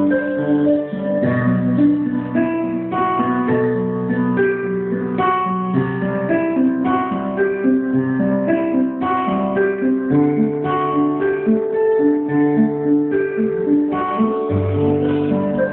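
Instrumental music played by a small band at a sound check, led by strummed and plucked guitar over low bass notes, with no singing.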